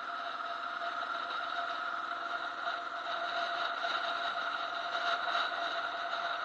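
Motorcycle engine running steadily at cruising speed, mixed with wind and road noise, a constant drone that grows slightly louder toward the end.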